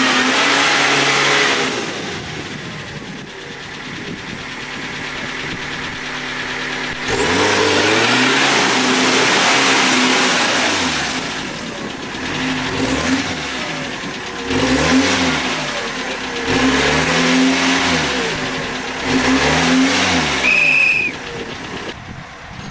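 Off-road vehicle engine revving hard in repeated bursts, its pitch climbing and falling. Two long revs come first, then four or five shorter, quicker revs in the second half, over a steady lower engine drone.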